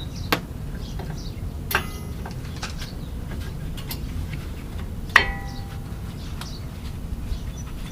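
Brake pad hardware being fitted: a few sharp metal clinks, two of them ringing briefly, the loudest about five seconds in, with light ticks between them.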